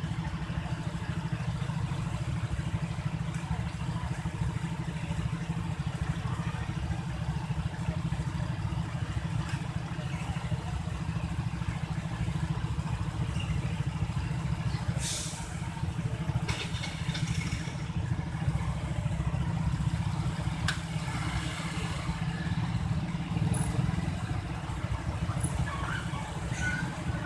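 Train passing over a level crossing: a steady low rumble of passenger coaches rolling by, with a few sharp clicks and short squeals from the wheels and rails about halfway through.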